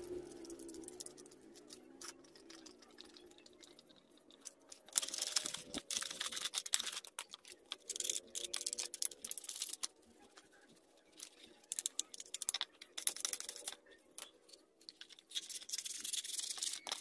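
Stiff brush scrubbing a metal scissor jack in soapy water, scratching and rattling in four bursts of quick strokes with short pauses between, the first starting about five seconds in.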